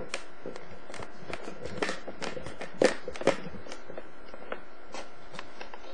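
Irregular small clicks and taps, with two louder knocks close together about three seconds in, over a steady faint hum.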